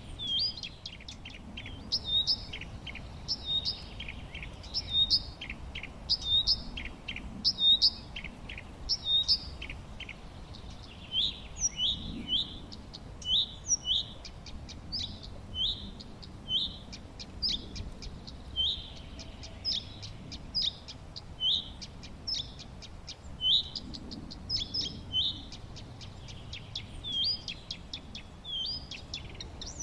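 Songbirds chirping: a steady run of short, high chirps, one or two a second, over a faint low rumble of background noise.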